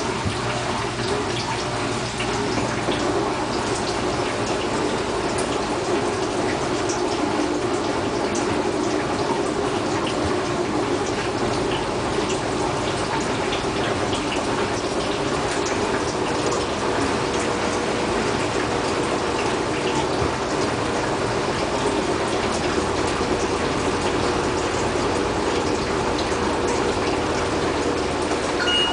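Bosch washing machine running with a full load: a steady rush and swish of water inside the machine, with a few faint ticks.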